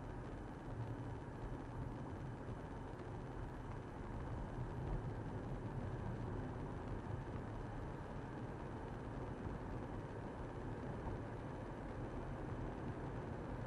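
Steady road and engine noise of a car being driven, heard from inside the car.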